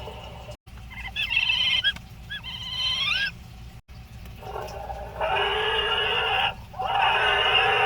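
Recorded animal sound effects played back one clip after another, each cut off sharply. First comes a warbling, chirping call with quick up-and-down trills. Then come two long bleats, each about two seconds.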